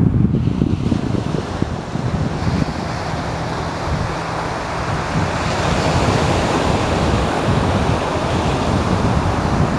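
Waves breaking and washing up the beach, with wind buffeting the microphone in low rumbling gusts; the surf's hiss swells about halfway through.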